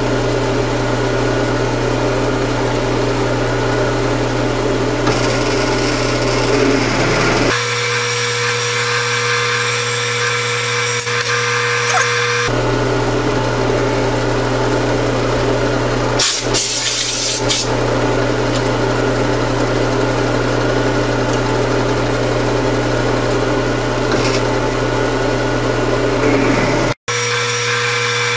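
Bench drill press running, a letter I twist drill boring tapping-size holes for an M8 thread through a small angle plate clamped in the vise: a steady motor hum with a few fixed tones. It changes abruptly several times where the footage is cut.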